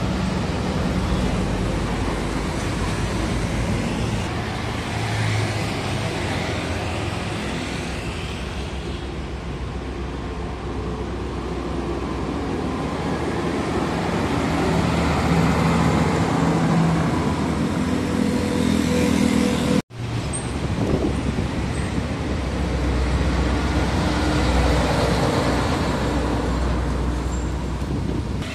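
Heavy diesel trucks driving slowly past on a city road, their engine and road noise swelling and fading as each goes by. The sound cuts out for an instant about twenty seconds in.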